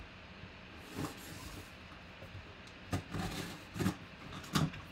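A knife slitting the packing tape on a cardboard box, with the box shifted and knocked against the table; about four short sharp knocks stand out.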